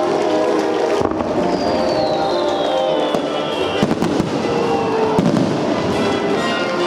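Fireworks bursting in a rapid string of bangs and crackles over music from the stadium PA. A high whistle falls in pitch about a second and a half in.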